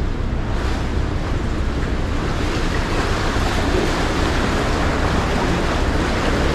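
Choppy ferry wake waves washing and splashing against a kayak's hull, with steady wind noise on the microphone.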